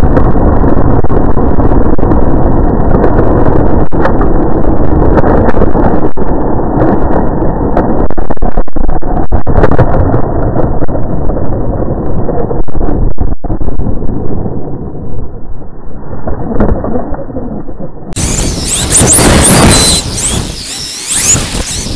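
Onboard microphone of a brushless electric 1/10 Traxxas E-Revo RC truck at speed, overloaded by heavy wind buffeting and the rumble of tyres and chassis vibration on the track; the sound is muffled and dull. About eighteen seconds in it turns brighter, with the gliding whine of the electric motor and drivetrain as the truck slows, and the level drops near the end.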